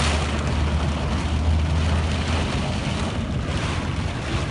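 A car's engine running with a steady low hum under a wash of rain and splashing floodwater, heard from inside the car's cabin; the low hum drops away a little over halfway through.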